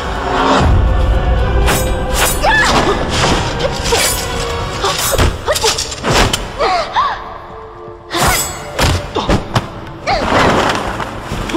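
Fight-scene sound effects: a rapid series of thuds and blows with whooshes, over dramatic background music.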